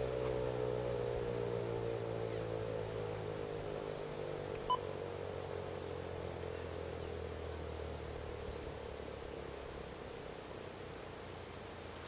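American Signal Corporation Tempest T-128 warning siren winding down at the end of its Alert signal: its tone falls in pitch and fades over the first few seconds, leaving a faint steady hum. A single short beep sounds about halfway through.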